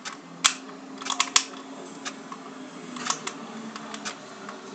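Small screwdriver working a screw out of a pistol's frame: a few sharp clicks about half a second and a second in, then lighter ticks and scraping as the screw is turned.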